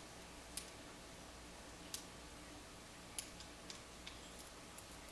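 A lock pick working the pins of a pin-tumbler lock under tension: a few faint, sharp clicks at irregular intervals as the pins set.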